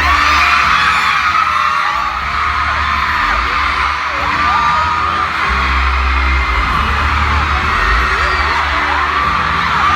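Large crowd of fans screaming, many high voices at once, over loud music with a heavy bass line.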